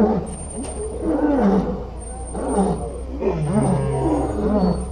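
Lions roaring in a run of short, deep roars, about one a second, each rising and falling in pitch.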